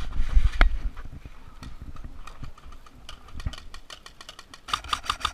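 An airsoft player moving forward: heavy thumps of footsteps and gear for the first second, then scattered sharp clicks, ending in a quick dense string of clicks.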